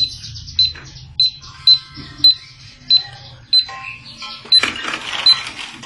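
Toy cash register's keypad beeping as its buttons are pressed, about two short high beeps a second. A rattling clatter joins near the end.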